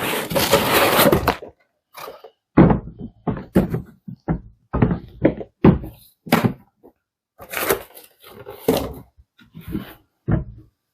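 Cardboard box and packaging being unpacked: a stretch of rustling for about the first second and a half, then a string of short knocks and thumps as things are handled and set down.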